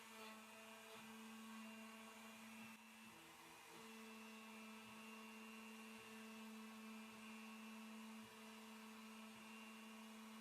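Faint hum of a CNC router: several steady tones that switch on and off and shift every second or two.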